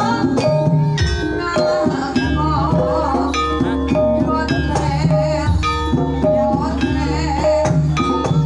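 Javanese Banyumasan gamelan playing an uyon-uyon gending: struck keyed instruments ringing out melodic notes over kendang hand-drum patterns. A sinden's female singing voice weaves through the ensemble in the first few seconds and again near the end.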